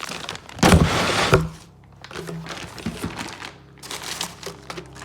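Plastic packaging crinkling as car parts are unpacked by hand, with a loud rustle about half a second in that ends in a sharp knock, then quieter rustling and light clicks.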